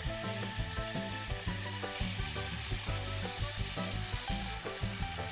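Pork loin fillets sizzling in olive oil in a frying pan, over background music with a steady beat.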